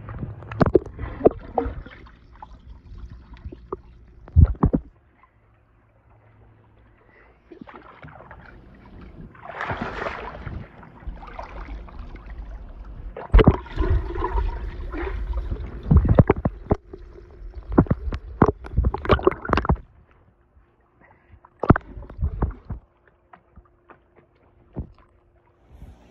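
Pool water sloshing, splashing and gurgling around a camera dipped in and out of the water. It comes in irregular spells with quiet gaps, and sounds muffled and bubbly while the camera is under the surface.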